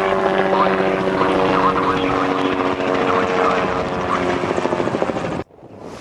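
Helicopter passing overhead: a steady engine and rotor drone with a held hum. It cuts off abruptly near the end.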